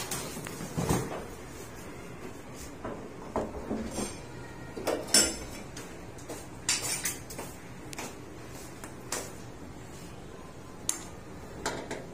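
Irregular metal clinks and clanks, about a dozen, from metal parts and tools being handled while a stove is being fitted, over a steady low hiss.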